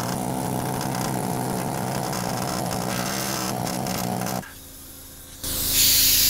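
Pneumatic air hammer with a chisel bit hammering rapidly and steadily against a seat-mounting bolt, having a hard time cutting through it. It stops about four and a half seconds in, and about a second later compressed air hisses loudly.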